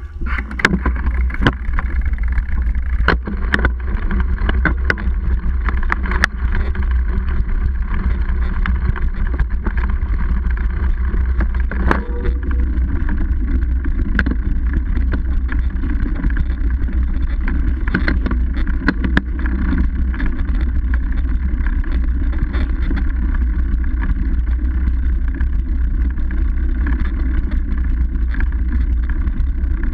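Steady low rumble of wind and riding vibration on a camera mounted to a mountain bike's seatpost as the bike rolls over a dirt singletrack, with sharp knocks and rattles from bumps in the trail, most of them in the first several seconds.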